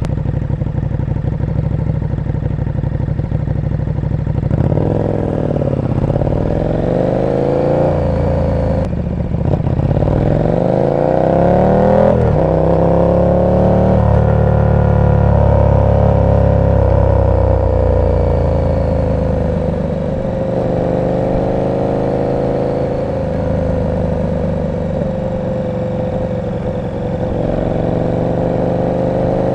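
KTM 1290 Super Duke R's 1301 cc V-twin through an aftermarket exhaust, running low and steady at first, then pulling away with the revs climbing and dropping at each upshift. It then holds a steady cruise, with the revs easing off and picking up again near the end.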